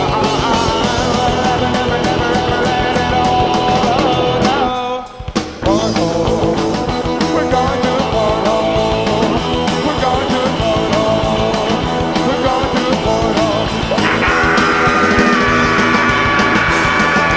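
A rock band playing live: full band music with no words. The music drops out briefly about five seconds in, and higher held notes come in about fourteen seconds in.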